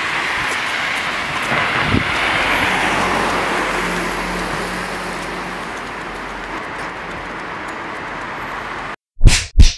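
Street traffic noise with a motor vehicle passing, a steady rushing noise with an engine hum in the middle. It cuts off suddenly near the end, followed by two loud, short hits in quick succession.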